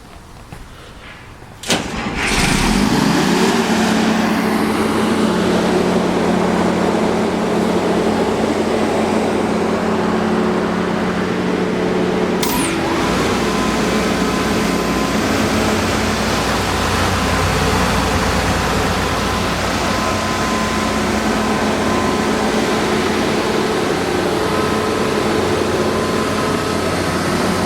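A Quincy 50 hp rotary screw air compressor starting up: a sharp click, a hum rising for a second or two as the electric motor spins up, then a loud steady run. About twelve and a half seconds in another click comes, after which the sound turns deeper as the compressor keeps running.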